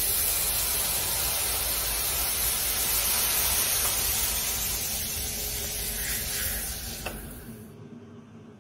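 Steady hissing sizzle as a hot metal ball sinks into a red lipstick, melting the wax so it splits apart. The hiss fades away over the last second or so.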